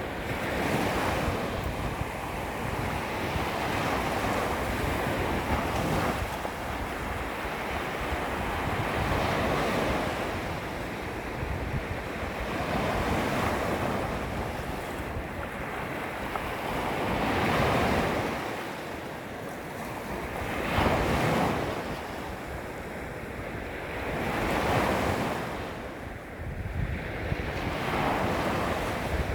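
Small waves lapping against a beach shoreline, each wash swelling and fading every few seconds, with wind rumbling on the microphone.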